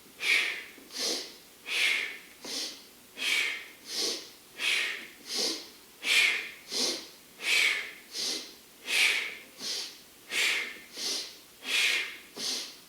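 A man breathing hard and rhythmically, in through the nose and out through the mouth, in quick, even breaths about one and a half a second.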